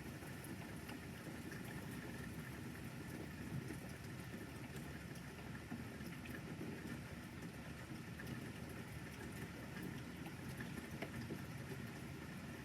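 Light rain falling: a steady hiss with scattered faint ticks of drops.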